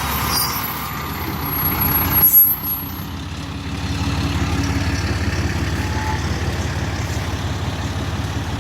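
Fire truck's diesel engine running, with a short hiss of air brakes about two seconds in. The engine then runs louder with a steady pulsing rumble.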